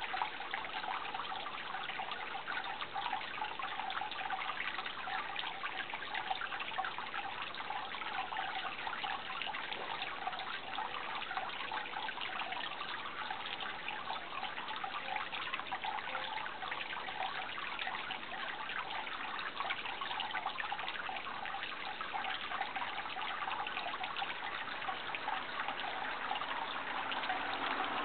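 Running water trickling steadily, with a fine continuous splashing.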